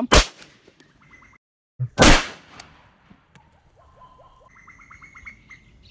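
A 9mm P.A.K. blank-firing pistol firing a hand-reloaded blank cartridge, which the shooter suspects was loaded with too much powder. Two sharp bangs about two seconds apart, the second the louder.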